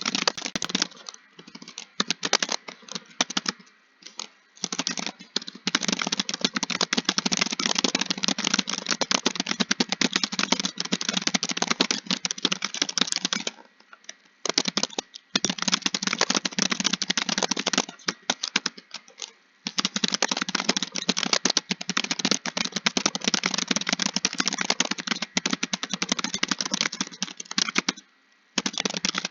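Fast typing on a computer keyboard: dense runs of key clicks, broken now and then by pauses of about a second.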